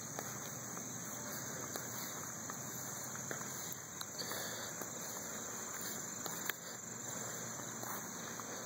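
A steady, high-pitched chorus of summer insects, with a few faint ticks and taps.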